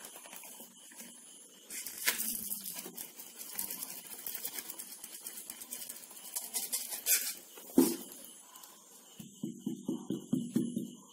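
Fingers working a cornflour-and-water mixture in a glass bowl: a run of rapid, scratchy crackling and squelching, one sharp knock against the bowl about two-thirds of the way through, then a quick series of soft squelches near the end.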